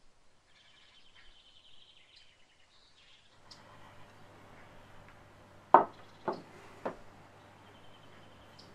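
Faint high bird chirps and trills, then a low steady room hum with three sharp knocks about half a second apart as a ceramic baking dish is set down on a wooden tabletop.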